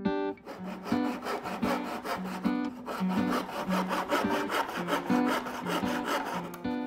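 Fine-toothed handsaw cutting through wood with quick, even back-and-forth strokes.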